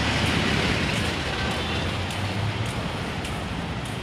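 Road traffic noise: a car driving past on the street, its tyre and engine noise easing off over a few seconds.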